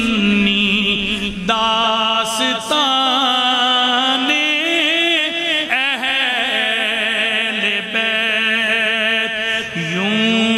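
A man singing an Urdu devotional poem in praise of the Ahl al-Bayt, drawing out long held notes with wavering, gliding ornaments.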